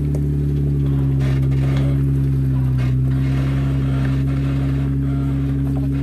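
Jeep Wrangler four-door's V6 engine running steadily at low revs as it crawls over a rock ledge, its pitch dipping slightly and recovering about halfway through.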